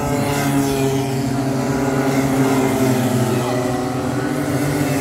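Several Rotax Micro Max two-stroke kart engines racing, their overlapping engine notes at different pitches rising and falling as the karts accelerate and brake around the circuit.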